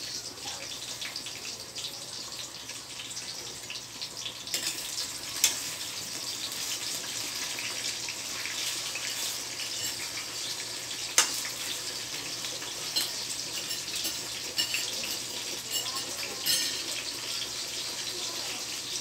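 Eggplant frying in hot oil in a wok: a steady sizzle that grows louder about four and a half seconds in, with a few sharp clicks.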